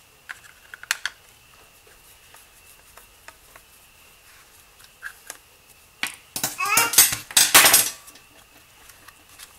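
Small clicks and taps of a screwdriver on the plastic clock spring and steering-column switch assembly of a Jeep Wrangler JK. About six seconds in comes a couple of seconds of loud plastic rattling and scraping as a switch stalk is worked off the housing.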